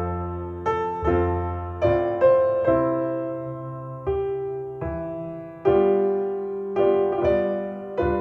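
Piano music: chords and single notes struck about once or twice a second, each ringing and dying away, played back through Paradigm Persona 7F loudspeakers driven by an Accuphase E-800 Class A integrated amplifier.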